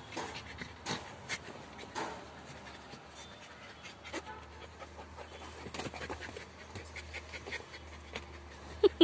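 Puppies panting and scuffling in and against a plastic pet carrier, with a few sharp knocks early on. At the very end a puppy gives a loud, short yelp that falls in pitch.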